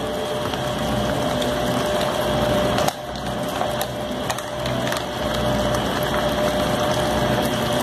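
Washing machine running, a steady churning noise that drops away briefly about three seconds in and then resumes.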